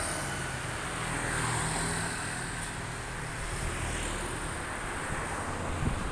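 Vehicle engine droning on the road, swelling about a second and a half in and then easing off, like a vehicle passing by.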